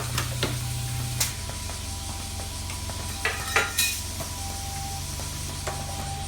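Automatic spot-welding machine running off a parts feeder: a steady low hum from the feeder, with scattered clicks and metallic clanks of the mechanism and a cluster of louder sharp clanks about three and a half seconds in.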